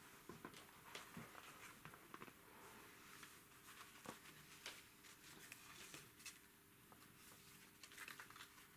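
Near silence: room tone with faint scattered small clicks and rustles, as of people shifting in a quiet room.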